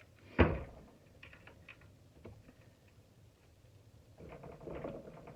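A single sharp knock about half a second in, then faint scattered clicks and a denser rattle of handling near the end: parts of a shop vacuum being dismantled and moved about on a workbench.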